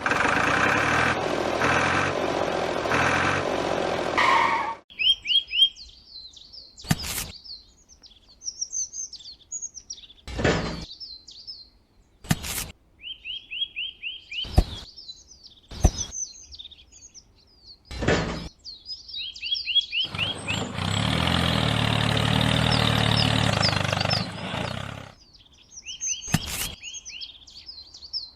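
Small birds chirping in quick repeated series, broken by several sharp knocks. Twice, near the start and about two-thirds through, a loud steady rushing noise with a low hum comes in for about four seconds.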